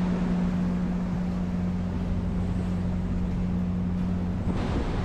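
Storm wind buffeting the microphone over heavy rain, with a steady low hum underneath that fades out near the end.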